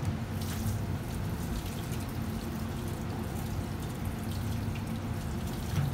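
Water running from a kitchen sink's spray faucet as a freshly cut sea bream head is rinsed under it, the hiss coming and going, over a steady low hum.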